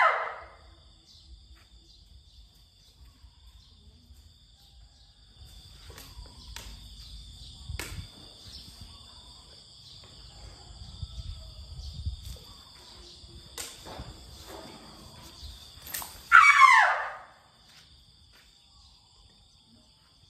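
Steady high-pitched drone of insects, with a few sharp knocks. About three-quarters of the way in comes a loud call about a second long, sliding down in pitch.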